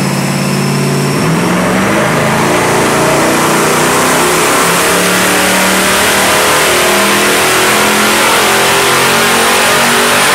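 Turbocharged Ford Coyote 5.0 V8 running loud and fairly steady on a chassis dyno. Its note dips and recovers about a second in, and a thin high whine climbs slowly over it.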